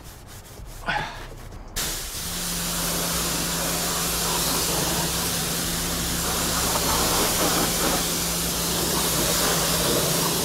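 Pressure washer spraying water onto the underside of a car's hood: a steady hiss of spray with a low even hum under it, starting about two seconds in.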